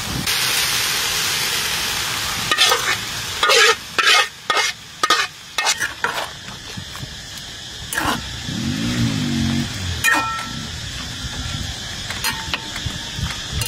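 Sauce sizzling in a wok, then a metal spoon clicking and scraping against a ceramic plate as food is stirred, with a few short ringing clinks near the end.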